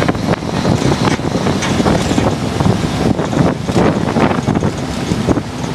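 Wind buffeting the microphone in the open back of a moving fire truck, with the truck's engine and road noise underneath.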